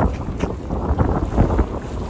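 Wind buffeting the microphone over choppy bay water, with waves slapping and splashing in irregular surges.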